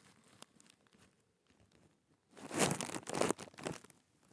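A burst of rustling, crinkling noise lasting about a second and a half, starting a little past halfway through. Before it there is near silence.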